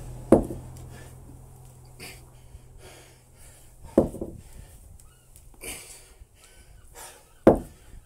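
Cast-iron kettlebell thudding down onto concrete paving three times, about three and a half seconds apart, as it is set down between snatch reps. Heavy panting breaths come between the thuds.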